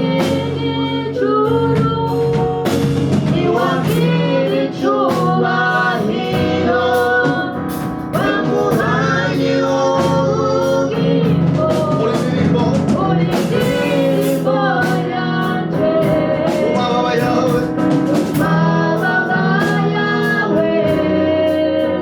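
Gospel worship song: singing over a live band with drums.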